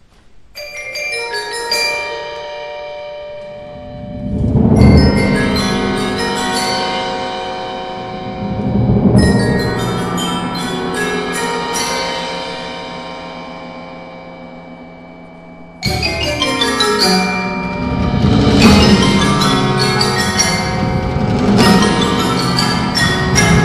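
Percussion ensemble playing tuned mallet percussion: groups of ringing pitched strokes swell up and die away three times over low rolling swells. About sixteen seconds in, a sudden, louder and denser passage of struck notes begins.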